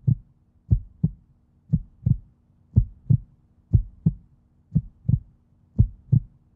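Heartbeat sound effect: a steady lub-dub of paired low thumps, about one pair a second, over a faint steady hum.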